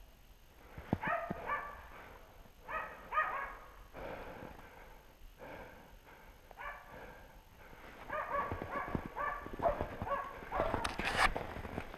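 Hunting dogs barking in short repeated volleys as they bay a wild boar, with the volleys coming thicker in the last few seconds. Footsteps crunch in snow and branches brush past, loudest near the end.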